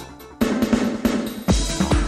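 Electronic dance music with a heavy bass kick. The kick drops out at the start, a held synth chord comes in about half a second in, and the kick beat returns about a second and a half in.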